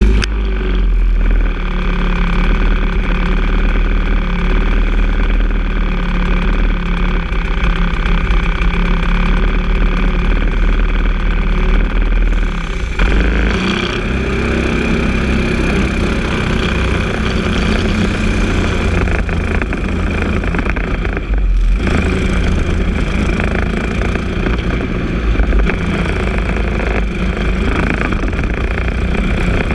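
Briggs & Stratton LO206 single-cylinder four-stroke kart engine idling steadily. About thirteen seconds in it pulls away and runs under load, with a brief dip about two-thirds of the way through.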